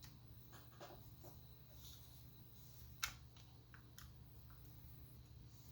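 Faint small clicks and taps of an Allen key and paintball marker parts being handled, with one sharper click about three seconds in, over a low steady hum.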